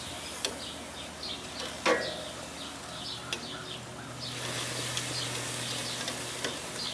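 Metal tongs clicking as bratwursts are set down on a hot gas grill grate. The sharpest clack comes about two seconds in, and a sizzling hiss swells about four seconds in. Birds chirp in the background.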